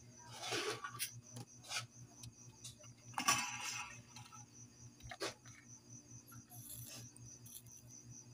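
Faint handling of wire and small electronic parts on a workbench: two brief rustles and a few light clicks and clinks, over a low steady hum.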